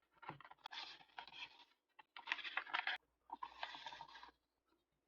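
Paper being handled: three stretches of rustling and rubbing, about a second each, then a few light taps near the end.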